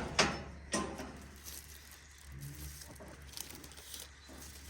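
Two light knocks in the first second, then quiet with a faint, short, low cow moo about halfway through.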